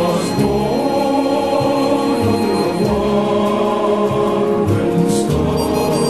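Music: a choir singing long held chords over orchestral accompaniment with low bass notes, the chord changing every second or so.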